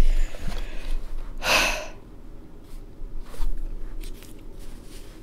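A person's sharp exhale, a single loud breath about a second and a half in, then a few faint clicks and rustles of handling.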